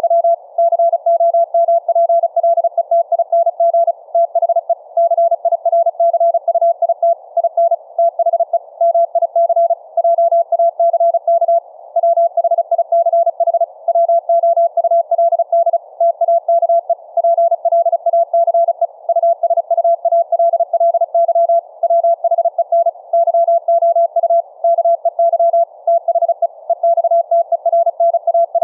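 Morse code (CW) tone keyed at high speed, about 35 words per minute, a single steady beep switched on and off in rapid dots and dashes with short pauses between words. The tones carry typed plain-text messages sent over a Family Radio Service two-way radio by an automatic sound-card keyer.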